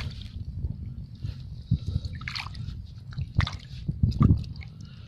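A hand moving in shallow seawater: irregular small splashes, sloshes and drips, the strongest about three and a half and four seconds in.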